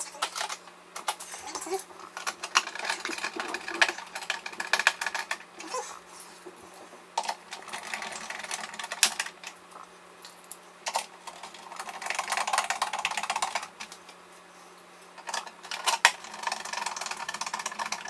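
Small screws being turned in with a hand screwdriver through the metal base plate of a coffee maker. Bursts of clicking and scraping alternate with short pauses and the rattle of screws and parts being handled.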